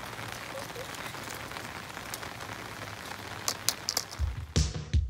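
Steady rain falling on wet brick paving, an even hiss with scattered sharp drop ticks. Music with a heavy low beat comes in near the end.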